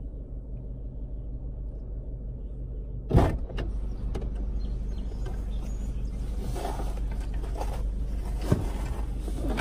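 Car engine idling, a steady low hum heard from inside the cabin, with one sharp thump about three seconds in and a small click near the end.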